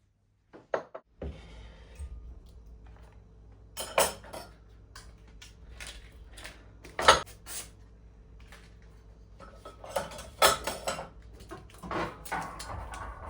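Dishes and kitchenware being handled and set down: scattered clinks and knocks, the loudest about four, seven and ten seconds in, over a low steady hum.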